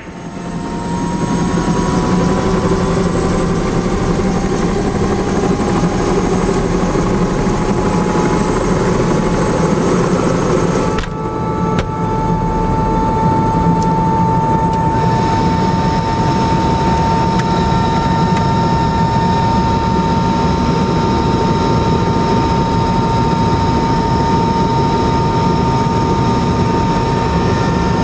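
Eurocopter AS350 B3 helicopter's Turbomeca Arriel 2 turboshaft engine and rotor running, heard inside the cabin: a steady high turbine whine over a dense rumble. The whine creeps slightly up in pitch over the first ten seconds, then holds steady after a short break about eleven seconds in.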